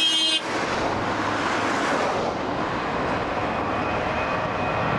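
Boeing 737-800's CFM56-7B jet engines at takeoff thrust as the airliner climbs out just after liftoff: a steady, loud jet roar. About half a second in, the sound changes abruptly from a set of steady tones to the broad roar, and its hiss softens as the jet climbs away.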